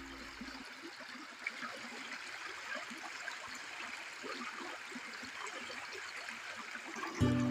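Small stream trickling and babbling steadily. The last note of ukulele music fades out at the start, and the music comes back in just before the end.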